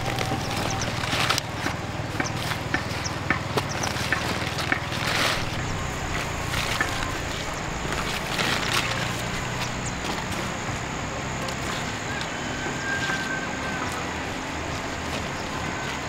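Kohlrabi being harvested by hand: sharp snaps and crackles of stems and leaves breaking, with rustling foliage, thickest in the first half. Under it runs a steady low engine hum, and a thin high steady tone joins about five seconds in.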